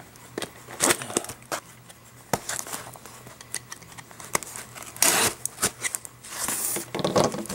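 Cardboard shipping box being torn open: scattered crackles and taps, with two longer tearing rips, about five seconds in and again near the end.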